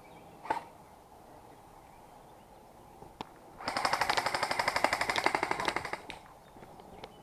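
An airsoft rifle fires a single shot, then a sustained full-auto burst of about two seconds at roughly fifteen shots a second.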